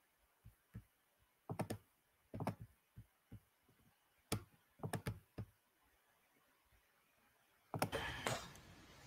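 Scattered clicks and taps of a computer keyboard and mouse, some in quick pairs. Near the end comes a sudden burst of noise that settles into a steady hiss.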